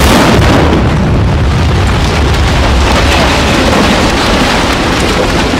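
Special-effects house explosion: a burst near the start, then a loud, sustained rumble from the fireball as debris showers down.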